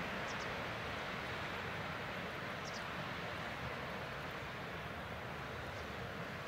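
Steady wash of sea surf on the chalk shore under light wind, with a few faint high chirps.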